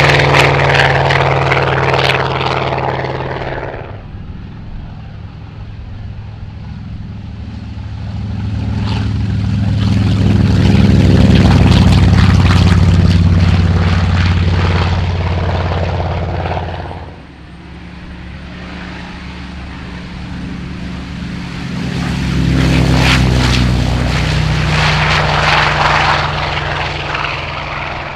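Big radial piston engines of WWII US Navy aircraft running at full takeoff power in three passes: an F6F Hellcat climbing away, then a TBM Avenger swelling to its loudest as it passes close and lifts off, then an F4U Corsair climbing out. Each is a steady, deep propeller drone that rises and fades.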